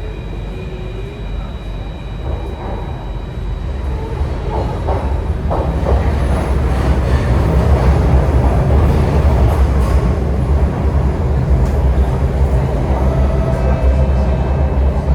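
Alstom Metropolis C830 metro train heard from inside the carriage, its running rumble growing louder over the first half as it goes into a sharp 90° curve. Faint, thin wheel-squeal tones begin near the end.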